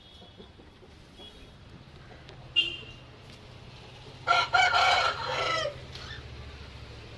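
A rooster crows once, loud, about four seconds in, lasting about a second and a half. A short sharp call comes a little earlier.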